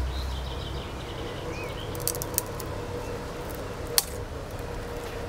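A few sharp cracks of a dry dead branch being handled and snapped by hand: two about two seconds in and the sharpest about four seconds in.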